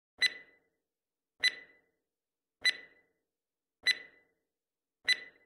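Quiz countdown timer sound effect: five short ticks, about one every 1.2 seconds, each a sharp click with a brief ringing tone, counting down the seconds given to answer.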